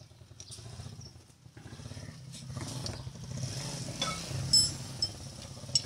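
A vehicle engine running steadily with a low hum that builds over the first couple of seconds. Several sharp metallic clinks of tools ring out in the second half.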